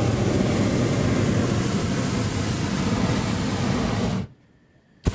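Hot-air balloon's propane burner firing in a loud, steady blast that cuts off suddenly about four seconds in, followed by a click near the end.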